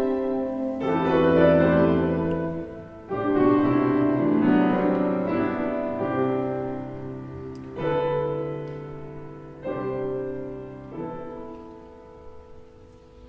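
Chamber ensemble playing contemporary classical music: a series of held chords, each entering sharply and fading away, growing softer near the end.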